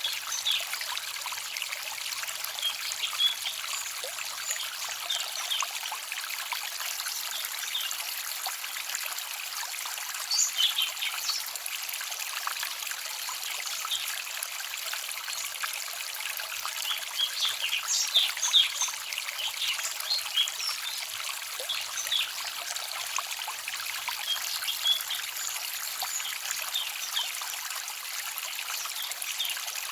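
A small forest stream trickling and babbling steadily, with brighter splashy spells about a third of the way in and again past the middle.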